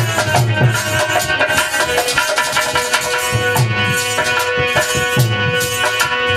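Instrumental interlude of Indian devotional music. Held melody notes on a keyboard instrument play over a rhythmic hand-drum beat, with a steady jingle of shaken percussion.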